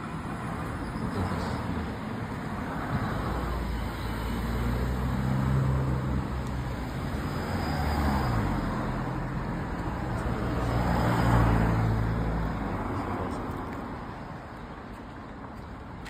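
Road traffic: several cars passing one after another, each rising and fading, the loudest about eleven seconds in.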